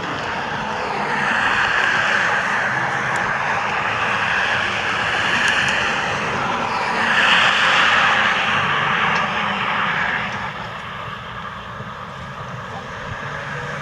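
Road traffic passing on a highway: a steady rush of tyre and engine noise that swells over several seconds and eases off about ten seconds in.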